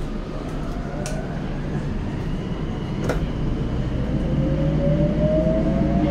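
Tokyo Metro 02 series subway car running, heard from inside the car: the traction motors' whine climbs slowly in pitch as the train gathers speed, over a steady rumble from the wheels and track. Two sharp clicks come about a second and three seconds in.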